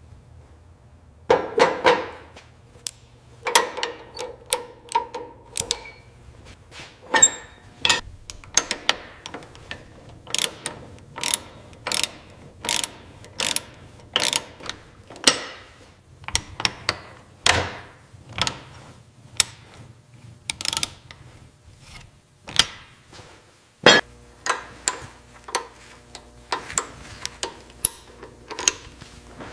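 Irregular metallic clicks and clanks of a wrench working the bolts on an old tractor, about one or two a second. Some clanks ring briefly, over a faint low steady hum.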